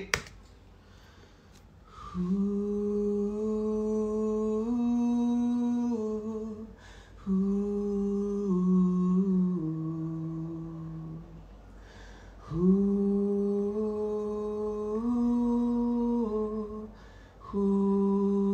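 Playback of a recorded wordless male vocal, hummed held notes moving in small steps, heard from the studio speakers. It comes in four phrases with short gaps between them, the first and third alike.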